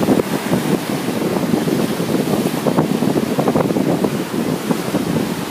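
Ocean surf washing onto the shore, with wind buffeting the microphone in a steady, gusty rush.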